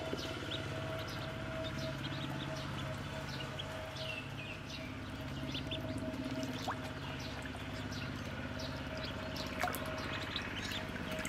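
Many Muscovy ducklings peeping in short, high chirps that overlap all through, over light water splashing and a steady low hum.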